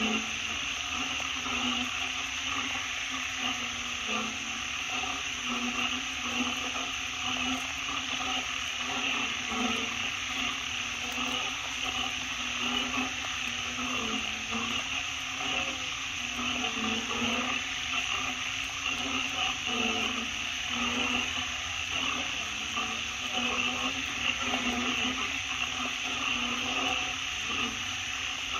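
Wet-forest ambience after rain: a steady high hiss, with a low, wavering, pulsing sound underneath.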